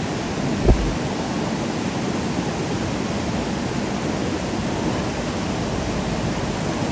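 Steady rush of whitewater rapids on a river, with a brief low thump about a second in.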